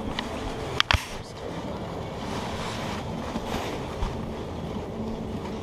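Steady background din of a busy boat show, with two sharp knocks close together about a second in.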